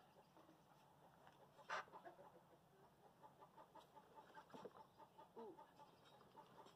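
Faint, scattered clucking of chickens, with a single soft click about two seconds in.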